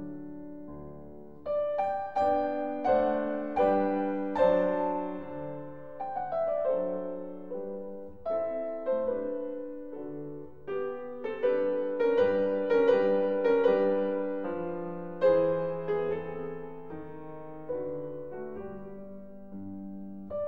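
Background solo piano music: a gentle melody of struck notes, each ringing and fading, some played as soft chords.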